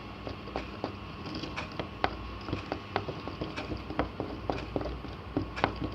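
A slime mixture being stirred in a container after powder has been added, with irregular clicks and taps of the stirring utensil several times a second.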